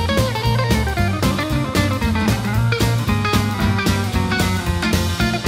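Intro music: blues-style guitar-led instrumental with a steady beat.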